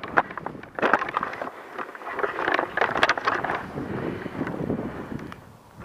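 Snow crunching and clothing and gear rustling as a player moves through deep snow, with scattered sharp clicks and knocks against the body-mounted camera, loudest about a second in and again in the middle.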